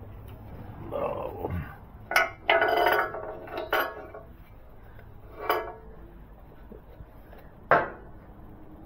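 A handful of scattered metallic clinks and knocks, from a screwdriver and metal parts being handled against a motorcycle's crash cage, the sharpest near the end.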